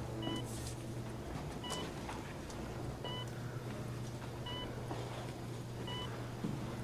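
Electronic monitor in a hospital room giving one short beep about every second and a half, over a steady low hum: a patient's heart-rate monitor.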